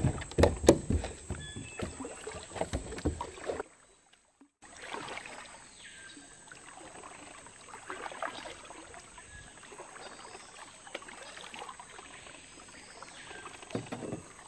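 Knocks and thumps on a hollow plastic kayak hull as a dog climbs aboard, for the first few seconds. After a short break, quieter kayak paddle strokes splashing and dripping in calm river water.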